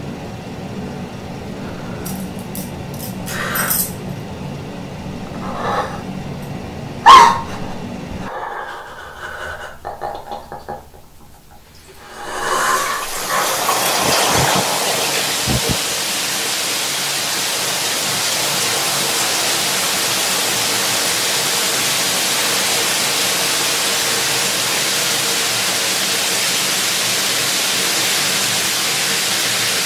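Low room hum with a few knocks, the loudest a sharp bang about seven seconds in, then a near-quiet gap. About twelve seconds in, a steady hiss of noise rises and runs on evenly.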